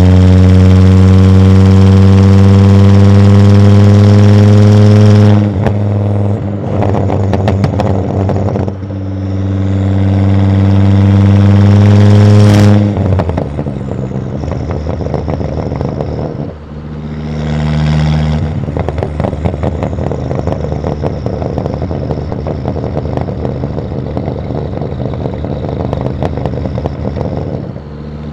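Volvo S60 2.5T's turbocharged inline five-cylinder, through a catless exhaust, is revved and held high twice. Each time it drops off into popping and crackling on the overrun, the second time with a short hiss as it is released. A brief blip follows, then it settles into a crackling burble.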